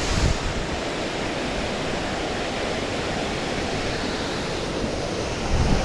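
Waterfall rushing, a steady dense roar of falling water. A brief low thump just after the start and another near the end.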